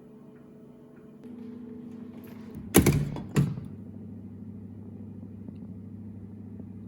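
Two loud, sharp thumps about half a second apart, a little under three seconds in, over a steady low hum that starts about a second in.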